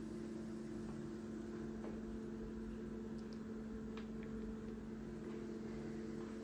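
Steady machine hum made of a few low held tones, with a couple of faint light clicks as a machined metal hub is handled on its fixture, the clearest about four seconds in.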